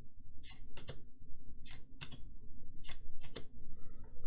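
A computer hard drive ticking: groups of two or three sharp clicks repeating roughly every second. This is the kind of ticking that points to a failing drive, one that may need replacing.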